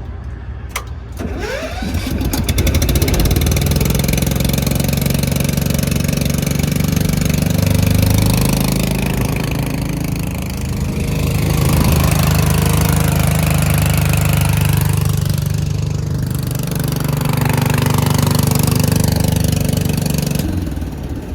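Petrol engine of a truck-mounted Quincy air compressor started with its choke on. It catches about a second and a half in, runs steadily with its loudness swelling and easing a few times, and shuts off about a second before the end.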